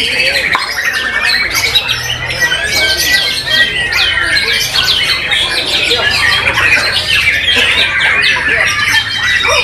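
White-rumped shama singing loudly in a continuous stream of whistled phrases and chattering notes, with other caged birds singing over it at the same time.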